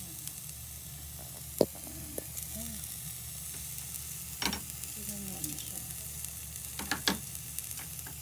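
Chopped garlic and ginger sizzling in hot oil in a pot, a steady hiss, with four sharp knocks, the loudest about a second and a half in.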